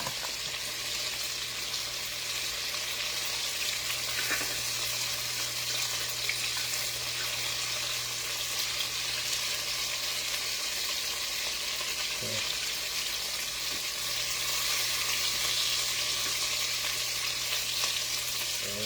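Lamb chops sizzling steadily in a pan of hot garlic butter, an even frying hiss, with a steady low hum underneath.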